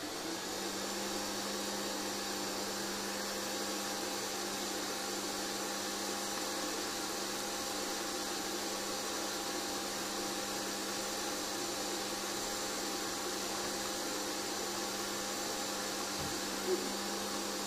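Kenwood stand mixer running steadily, its beater mixing cake batter: an even motor hum at one unchanging pitch, switched on about half a second in.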